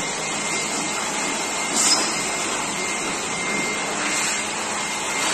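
Handheld electric air blower running steadily as it is used to blow dust out of a hospital ventilator, with a faint high whine. It is briefly louder about two seconds in.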